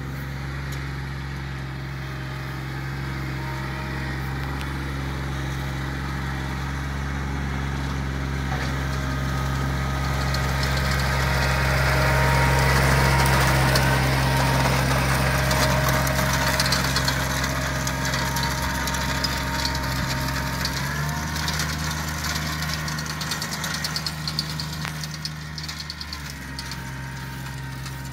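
John Deere 2320 compact tractor's three-cylinder diesel running steadily while it pulls a plug aerator across the lawn. It grows louder toward the middle, as the tractor passes close, then fades, with a light rattling from the aerator.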